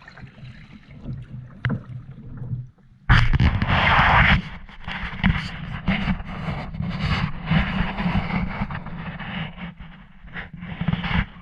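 Wind buffeting the microphone over water sounds around a fishing kayak being launched, with a sudden loud gust about three seconds in, then steady rushing with frequent small knocks and splashes.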